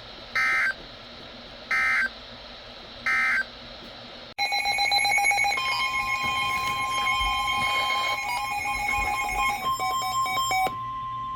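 Three short bursts of emergency alert data tones, evenly spaced: the end-of-message signal closing a NOAA Weather Radio warning. About four seconds in, a louder clash of overlapping electronic alert tones and fast beeping starts, with a steady high tone holding under it until near the end.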